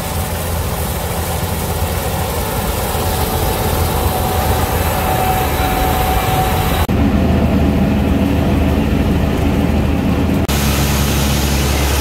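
Gleaner combine harvester running steadily as it cuts and threshes wheat. The sound changes twice, at about 7 seconds and again at about 10.5 seconds, ending on a steady low engine idle.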